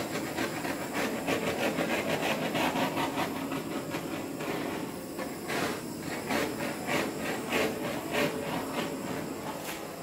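Handheld gas torch burning with a steady hissing flame as it is passed over wet acrylic pour paint to pop air bubbles in the surface; the hiss drops away at the very end.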